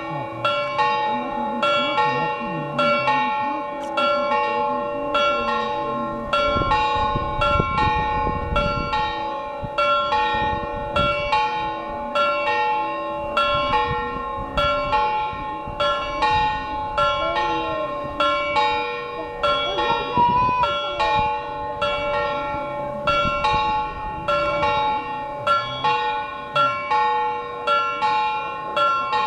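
Church bells ringing a continuous peal during the Frauenkirche's Männleinlaufen clock show: several bells of different pitches are struck over and over in a quick, steady rhythm.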